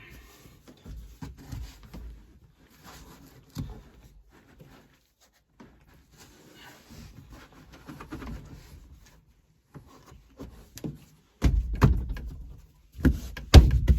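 Hand tools and metal parts being handled during work on a tractor's hydraulic line: scattered clicks, knocks and rubbing, then a few heavy, low thumps near the end.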